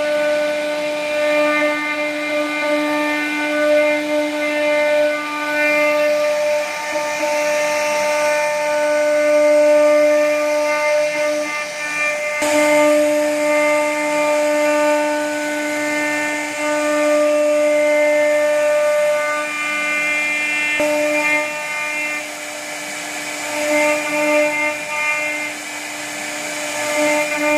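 CNC router spindle whining at a steady pitch as its bit carves a wooden door panel. The cutting noise swells and eases as the bit moves through the wood.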